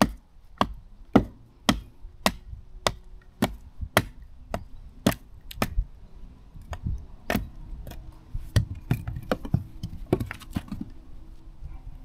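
Axe chopping wood, each blow a sharp thwack, about two blows a second at first, then less regular.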